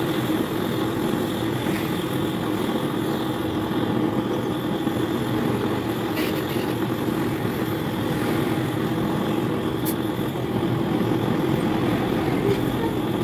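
Steady mechanical drone, like a motor or engine running, with a light click about ten seconds in.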